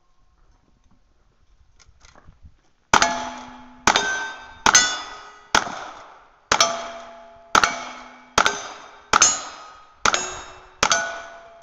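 Rifle fired ten times in steady succession, about one shot a second, each shot followed by the ring of a steel target being hit.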